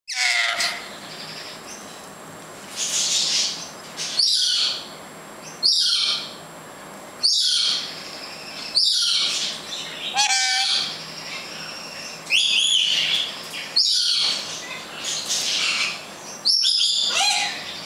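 Yellow-backed chattering lory giving a series of loud, high-pitched calls, about one every second and a half, each with a quick up-and-down pitch glide.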